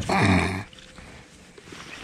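A man's strained grunt, about half a second long with falling pitch, from the effort of lifting a heavy blue catfish in the landing net into the boat; a short knock comes just before it.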